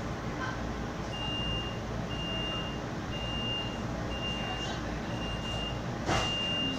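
Electronic warning beeper sounding six times, about once a second, each beep a single high tone about half a second long, over the steady low hum of a streetcar interior. A brief clatter comes near the end.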